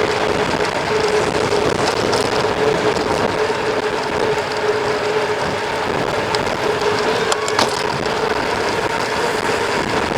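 Riding noise of a mountain bike at speed: steady wind rush on the microphone with a constant hum, likely from the tyres rolling.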